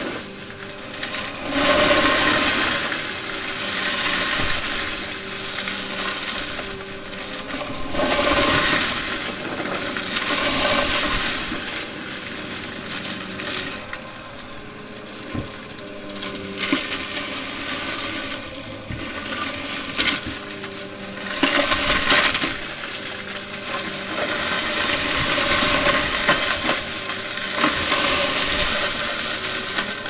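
Vacuum cleaner running with a steady motor whine, sucking up crunchy debris that rattles and clinks through the nozzle and hose. The crackle swells and fades several times.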